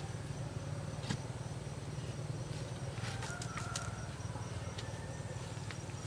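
Bamboo pole being jabbed down into the soil, giving a few short knocks, over a steady low hum.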